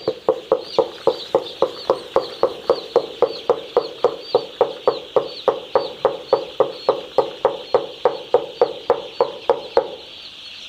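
Rhythmic knocking, about three to four knocks a second, that stops near the end, over the steady high peeping of many poultry chicks.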